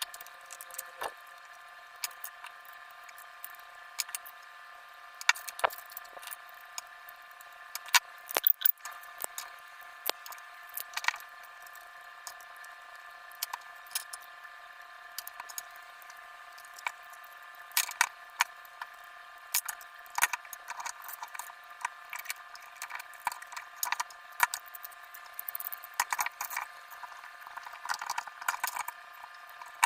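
Irregular light clicks and taps of small hard plastic parts over a steady high hum made of several fixed tones.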